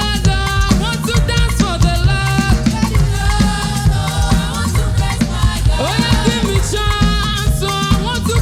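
Live praise music: voices singing a melody over drums, bass and a shaker keeping a steady, danceable beat.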